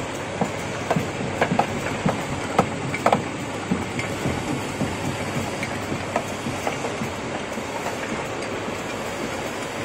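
Rotary cube-pressing machine running: a steady mechanical noise with irregular sharp clicks and clacks from its turning turret as it presses and ejects cubes.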